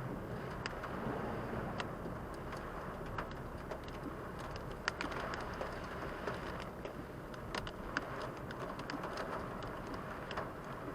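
Heavy rain hitting a car's roof and windshield, heard from inside the moving car over steady road noise, with scattered sharp drop hits.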